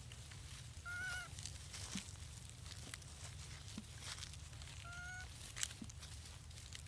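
A long-tailed macaque gives two short, clear calls about four seconds apart, each lasting under half a second.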